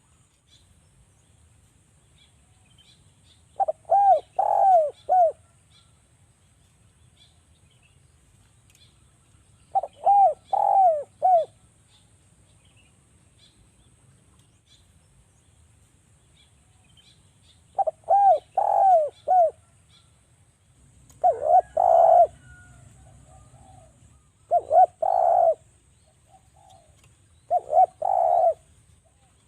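Derkuku (spotted dove) cooing: short phrases of four or five coos repeated every few seconds, the later phrases coming closer together and sounding rougher.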